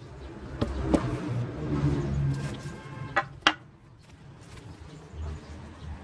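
A low insect-like buzzing, with a few sharp clicks and two sharp knocks a little over three seconds in.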